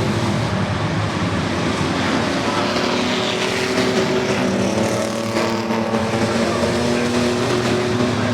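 Pack of racing trucks' engines running together at race speed, a loud steady din with several engine notes that shift in pitch as trucks pass.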